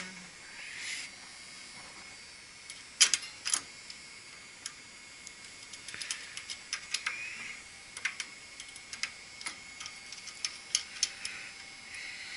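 Hand tools and metal fittings being handled: two sharp knocks about three seconds in, then a run of small, irregular clicks and light taps.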